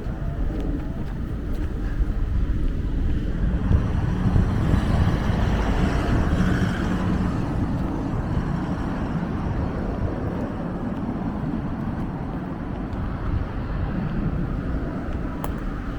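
Steady road traffic noise that swells and fades as a vehicle passes between about four and eight seconds in.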